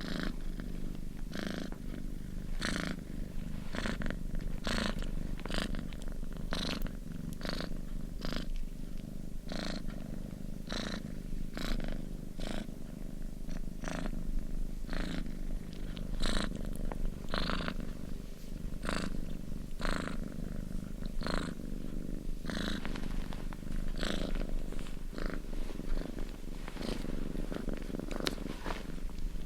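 Domestic cat purring steadily: a continuous low rumble with a breathy surge on each breath, one to two a second.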